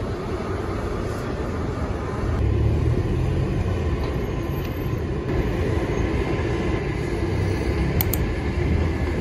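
Steady low rumble of city traffic, with no single event standing out; it swells slightly a couple of seconds in.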